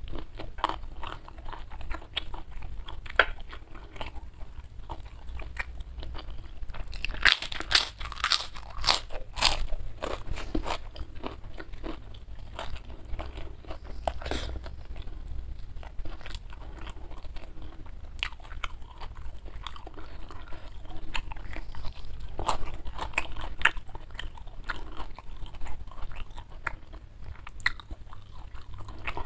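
A person chewing and crunching crisp food, close to a clip-on microphone: a steady run of small crackles, with a dense burst of loud crunches about seven to ten seconds in and another around twenty-two seconds.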